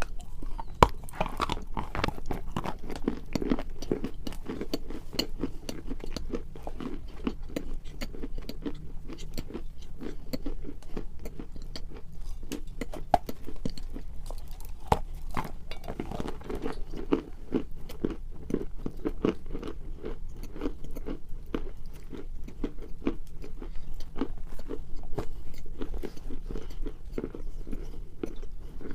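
People biting and chewing pieces of pressed edible clay: a steady run of crisp crunches and grinding chews.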